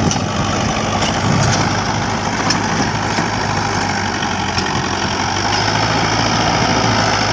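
Mahindra 575 tractor's diesel engine running steadily under load as it pulls a 7-foot Shaktimaan rotavator churning through dry soil.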